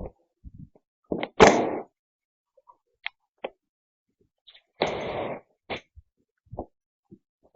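Scattered knocks and thuds, with two louder, noisier bursts of about half a second each, about a second and a half in and about five seconds in.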